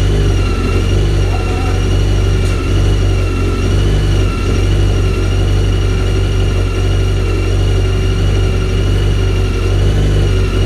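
VW Polo race car's freshly installed four-cylinder engine running at a steady idle, with a thin high whine over the low drone.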